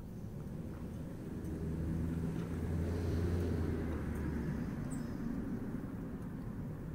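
Low hum of a motor vehicle's engine, growing louder about a second and a half in and fading again after about four and a half seconds, as of a vehicle passing by.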